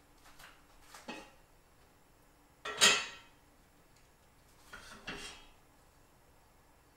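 Cookware clatter on a gas stove: a pot lid is set down on the stove grate with a ringing clank about three seconds in, between lighter knocks and scrapes of pans.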